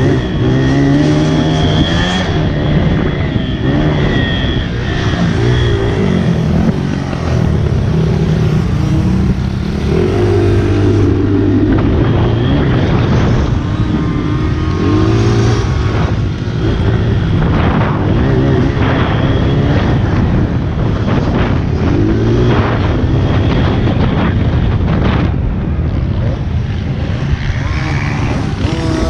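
Honda CRF80 pit bike's small single-cylinder four-stroke engine revving up and falling back again and again as it is ridden round a dirt track, with scattered knocks.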